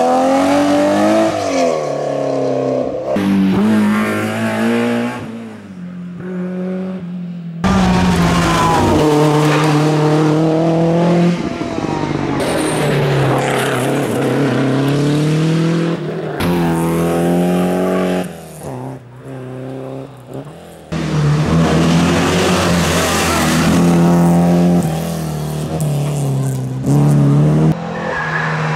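Historic rally cars driven flat out, engines revving hard and climbing and dropping in pitch through repeated gear changes. Several cars are heard one after another, with abrupt cuts between them, and one quieter stretch about two-thirds of the way through.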